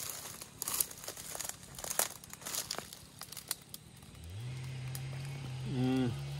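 Blackberry bramble leaves and twigs rustling and crackling as berries are picked off by hand. About four seconds in, a man's low steady hum starts as he eats one.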